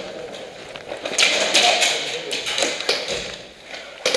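Running footsteps and rattling gear of an airsoft player on a concrete floor: a quick scatter of sharp taps and clicks, densest about a second in.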